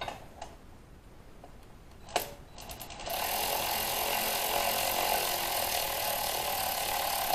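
A click about two seconds in, then a power tool running steadily for about four seconds as it runs a cylinder head bolt down until it is just snug, before final torquing.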